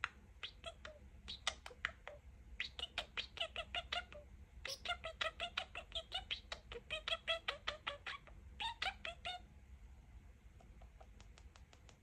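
Pet budgerigar chattering: fast runs of clicks and short warbled chirps, with mimicked words ('peekaboo') mixed in. It dies down to faint ticks for the last couple of seconds.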